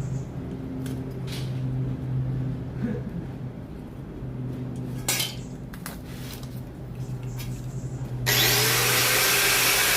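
A power tool starts about eight seconds in and runs loudly, its whine rising as it spins up. Before it, a steady low hum with a few scattered clicks and knocks.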